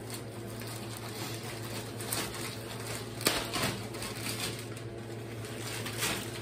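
Plastic shipping bag crinkling and rustling as it is handled and opened, with sharper crackles about two and three seconds in, over a steady low hum.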